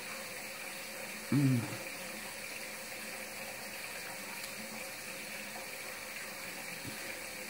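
A woman's short, pitched 'mm' of enjoyment as she chews a bite of steak, about a second and a half in, over a steady background hiss.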